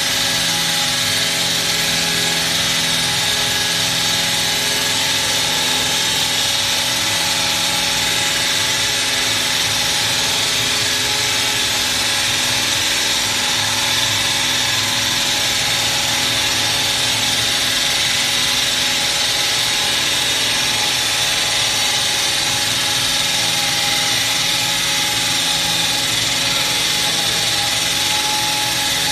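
HWS-800TM hydraulic wall saw running steadily, its power pack and blade making a continuous even machine noise with a constant drone.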